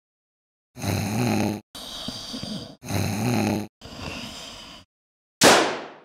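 Cartoon snoring sound effect: two snores, each a loud rattling inhale followed by a softer exhale. Near the end comes a sudden loud hit that fades away.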